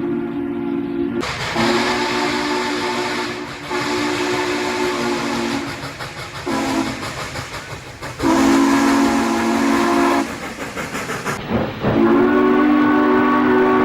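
Steam train whistle blowing a series of long blasts, each several steady tones sounding together. Between the blasts come short stretches of hiss and train noise.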